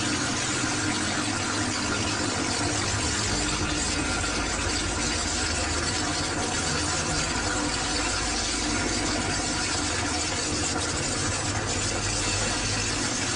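A fire burns out of a buried line that an excavator has dug into, with a steady hiss and a low hum that do not let up.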